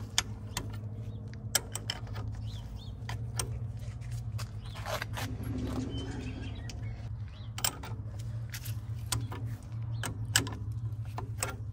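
Scattered light metallic clicks and clinks of a 3/4-inch wrench on the brake adjusting bolt of a 1954 Allis-Chalmers WD45 tractor. The wrench is fitted and turned clockwise to take up the brake clearance until the brakes start to drag. A steady low hum sits underneath.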